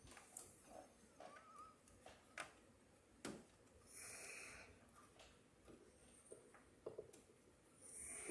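Near silence with faint scattered clicks and taps from handling RAM modules and computer parts, and a short breath-like hiss about four seconds in.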